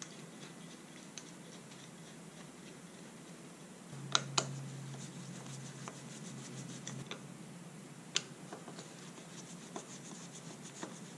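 Hands and a screwdriver working small metal parts while fitting a motorcycle front brake master cylinder to the handlebar: light scraping and rubbing with a few sharp clicks, two close together about four seconds in and another near eight seconds.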